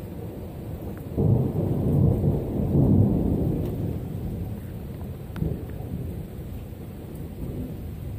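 Thunder rumbling: a low rumble that swells suddenly about a second in, stays strong for about two seconds, then dies away slowly.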